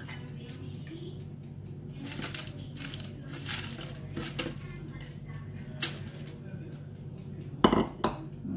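Baking paper and aluminium foil crinkling in short rustles as raw chicken pieces are laid and pressed into a lined baking pan, over a steady low hum. The loudest crinkle comes near the end.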